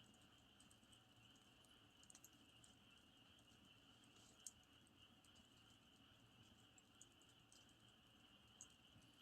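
Faint campfire crackling: scattered small sharp pops and ticks from the burning wood, the loudest about four and a half seconds in, over a steady high-pitched drone.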